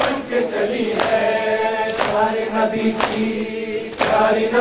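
Men's voices chanting a Shia noha in unison, with a sharp beat about once a second from chest-beating (matam) keeping time.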